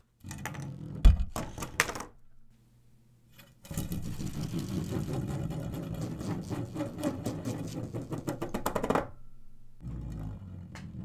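Many small LEGO wedge plates in a flexible donut-shaped build clicking and rattling against each other and the tabletop as it tumbles and rolls: a short clatter with one sharp knock about a second in, then a dense run of rapid clicking for about five seconds.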